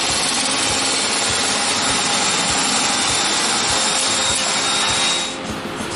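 Corded electric sheet-metal shear running steadily as it cuts a panel out of sheet metal, stopping about five seconds in.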